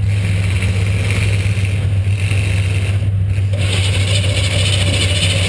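Demolition derby car's V8 engine running loud and steady, heard through an onboard GoPro. About three and a half seconds in, a louder hiss rises over it.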